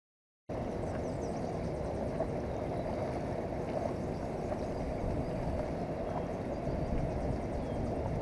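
Steady low rumble of wind buffeting the microphone over the rushing flow of a river. It cuts in suddenly about half a second in, after a moment of silence.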